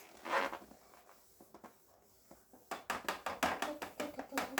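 A nearly empty plastic food-colouring dropper bottle, first a short puff of air as it is squeezed, then, from a bit over halfway, a fast run of taps at about five or six a second as it is knocked to get the last drops of dye out.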